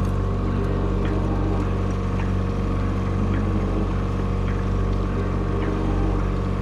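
Mercury outboard motor running steadily at low trolling speed, with light ticks about once a second.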